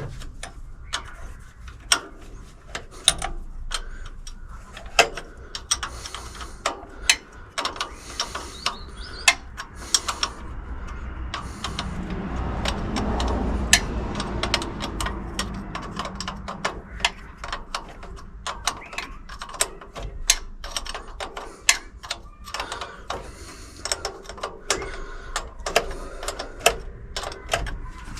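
Hand ratchet clicking in short irregular runs, with scattered sharp metal clicks and taps, as a carburettor hold-down nut is worked loose. A low rumble swells and fades about halfway through.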